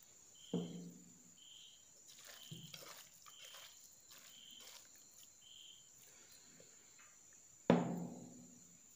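Quiet sounds of a hand mixing marinated beef pieces in a steel bowl, with two short low knocks, one about half a second in and one near the end. Behind it, a faint high chirp repeats about once a second.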